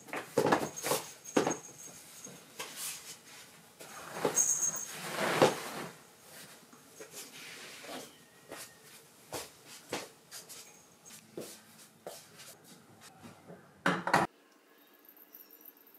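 Duvet and bedsheets rustling in loud swishes as someone gets out of bed and roughly straightens the covers, followed by scattered light taps and knocks.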